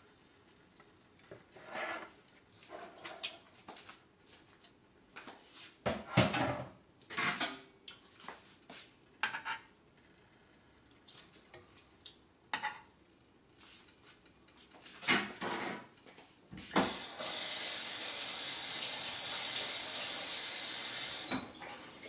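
Kitchen dishes and cutlery clattering and clinking in short scattered knocks. Near the end, water runs steadily from a tap for about four seconds, starting and stopping abruptly.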